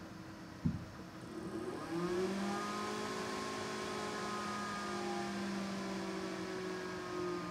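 A sharp click, then the cooling fans of a bare motherboard test setup, the CPU fan among them, spin up as it powers on: a hum rising in pitch that settles after about a second into a steady whir.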